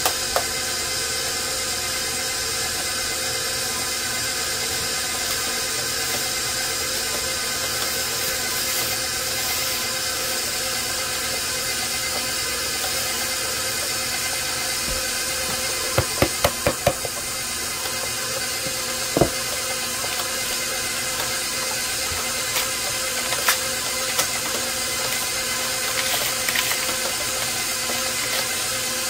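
A 6-quart, 575-watt bowl-lift stand mixer running steadily, its dough hook kneading flour and liquid into bread dough. A quick run of knocks comes about 16 seconds in, with one more knock a few seconds later.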